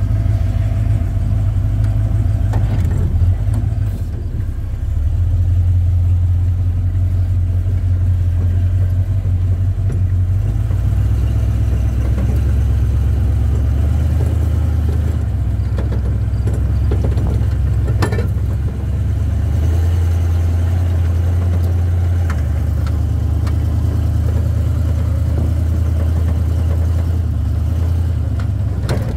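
1976 Ford Bronco's V8 running through its new exhaust, heard from inside the cab while driving, its low note stepping up and down several times with the throttle and road speed. A few brief knocks and rattles, the clearest about 18 seconds in.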